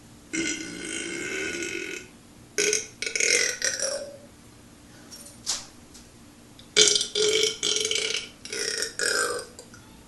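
A man belching: one long belch of nearly two seconds, then a run of shorter belches in quick groups with short pauses between.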